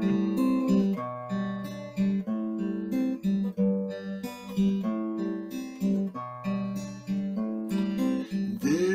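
Steel-string acoustic guitar playing a folk song's instrumental introduction, chords plucked in an even rhythm of about two a second.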